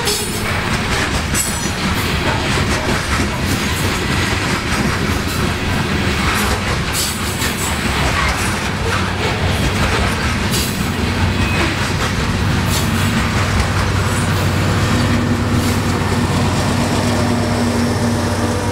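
Loaded coal hopper cars rolling past, a steady rumble with scattered sharp clicks of steel wheels on the rails. Past the middle, a steady low diesel hum grows as the rear locomotive of the train approaches and passes.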